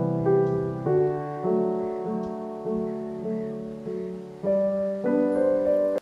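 Background piano music: slow notes and chords that ring out and fade, with a long held chord through the middle.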